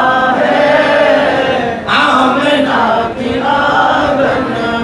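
Men's voices chanting an unaccompanied Islamic devotional chant in praise of the Prophet, with long held notes and short breaths between phrases.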